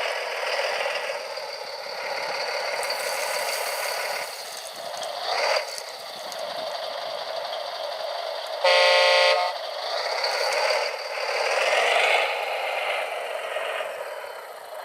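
Radio-controlled construction models running, their small motors and gearing whining and rattling. A horn sounds once for about a second, about two-thirds of the way through, and is the loudest sound.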